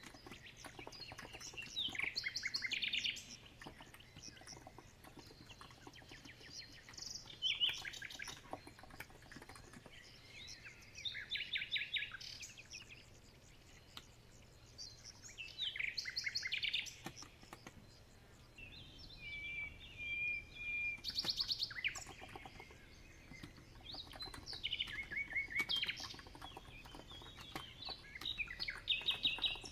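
Songbird singing short trilled phrases, one every four or five seconds, with a held whistled note a little past the middle. Underneath is the faint, soft clicking of typing on an electrocapacitive (Topre-style) keyboard.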